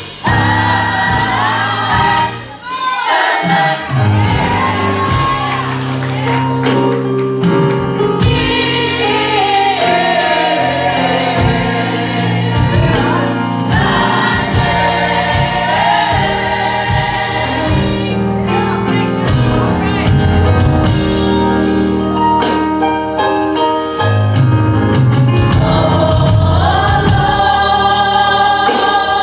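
Gospel choir singing with musical accompaniment: held, sung notes over a sustained bass, with a brief drop in loudness about two and a half seconds in.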